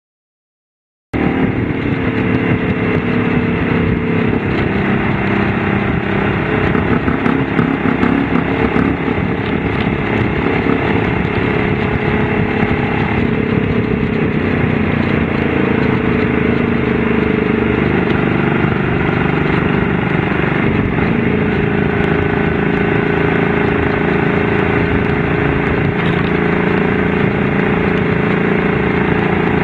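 Honda V-Twin Magna 250's 249 cc V-twin engine running steadily, coming in about a second in, its pitch shifting only slightly.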